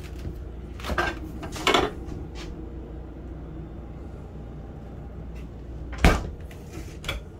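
Kitchen doors being handled, opened and shut with soft knocks, and one sharp thump about six seconds in as a door closes.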